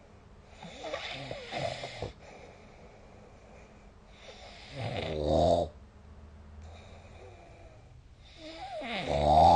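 A sleeping person snoring, a snore about every four seconds. Each swells and then cuts off abruptly, and the later ones are louder.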